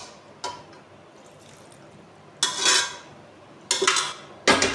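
A metal ladle clinks and scrapes against an aluminium cooking pot a few times, with the loudest clinks near the end, over a faint sizzle of the simmering mince and bitter gourd.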